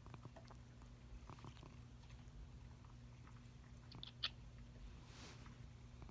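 Domestic cat purring faintly and steadily, with a few small clicks, the sharpest about four seconds in.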